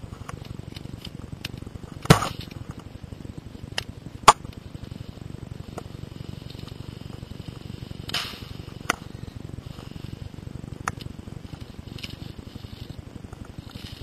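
Scattered sharp snaps of airsoft guns firing single shots, about six in all, the loudest about two and four seconds in. Under them runs a steady low rumble of handling and movement noise on the microphone.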